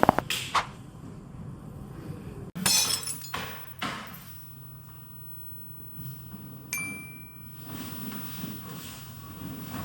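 Joints popping during a chiropractic spinal adjustment: a quick run of sharp cracks at the start, then more cracks mixed with rustling around three seconds in. A brief high ringing clink comes about seven seconds in.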